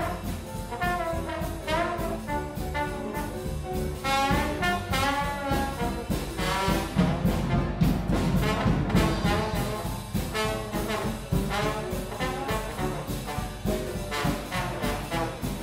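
Background music: a jazzy tune led by brass instruments over a steady beat.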